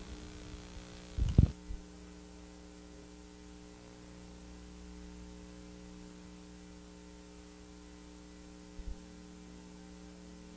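Steady electrical mains hum with a few faint steady tones, left on the line once the tape's sound has ended and the player shows no signal. A short low thump comes about a second in, and a fainter one near the end.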